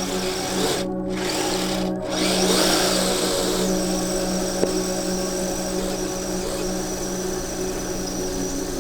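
Kyosho Blizzard SR radio-controlled tracked snow vehicle driving, its electric motor and gear drive giving a steady whine, with two short breaks in the upper hiss about a second and two seconds in.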